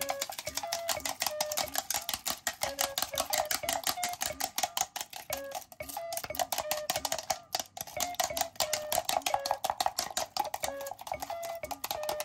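Rapid, steady clicking of chopsticks beating eggs against the sides of a plastic measuring cup.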